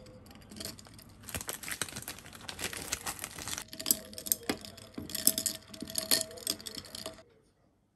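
A frozen lemon slice is dropped into a glass of iced drink, then a glass straw stirs the ice cubes: rapid, irregular clinking of ice and straw against the glass, which stops suddenly about seven seconds in.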